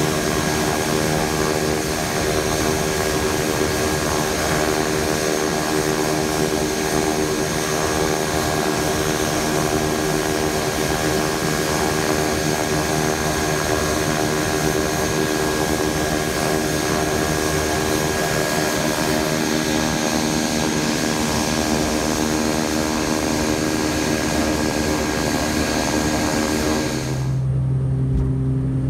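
Beechcraft King Air 200's twin PT6A turboprop engines running as the plane taxis, a steady high turbine whine over the propellers' drone. Near the end the sound cuts abruptly to a lower, steady drone heard from inside the cockpit.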